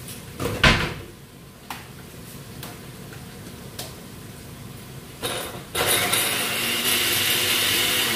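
Electric countertop blender dry-grinding dried catfish. A clunk and a few clicks as the jug is handled come first; then, about five seconds in, the motor gives a short pulse and runs steadily and loudly after it.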